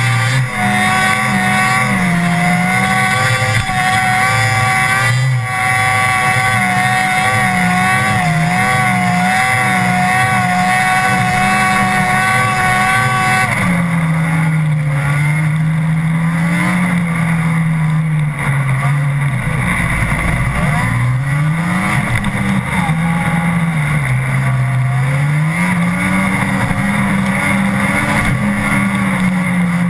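Snowmobile engine running hard, its pitch rising and falling again and again as the rider works the throttle. A steady high whine runs with it and drops out suddenly about halfway through.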